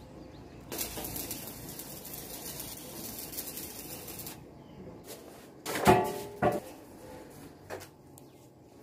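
Handheld electric drill running for about three and a half seconds, drilling at the steel stringer where it meets the wall, then stopping. Two short, loud knocks follow about two seconds later.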